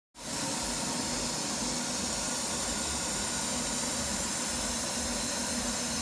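Machine-shop machinery running steadily during the machining of an engine block, a constant hum with a strong hiss over it, cutting in suddenly.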